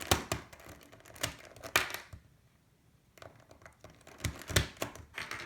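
Plastic pieces of a GAN 356 X speed cube clicking as edges and corners are pushed into place while the cube is reassembled. Several sharp separate clicks, with a pause of about a second midway.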